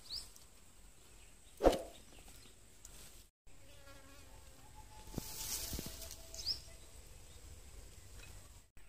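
Quiet outdoor sounds of food being served: a serving spoon knocks sharply once against a steel vessel a little under two seconds in, and a few lighter clinks follow later, over a faint insect buzz.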